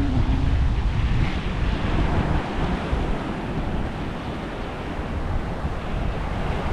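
Sea waves washing onto a beach, with wind buffeting the microphone in a heavy low rumble. The surf rises and falls a little, easing off somewhat around the middle.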